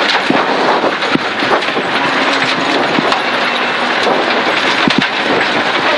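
Rally car at speed on a gravel stage, heard from inside its stripped cabin: a loud steady rush of engine and tyre noise, broken by frequent sharp knocks and clatters of gravel striking the underside. The car is set low on a tarmac setup and keeps hitting its underbody.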